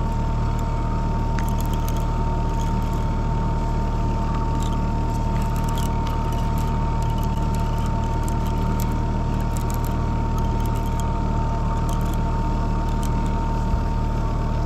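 Boat motor running steadily with a low hum and a constant high whine, with faint scattered clicks over it.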